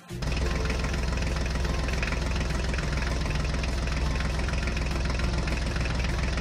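Tractor engine sound effect idling steadily with a fast, even chugging, cutting in abruptly at the start.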